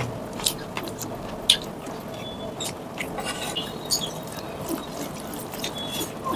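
Curry poured from a bowl onto a plate of rice, then worked into the rice by hand: soft wet squishing and small clicks, with sharper taps about half a second and a second and a half in.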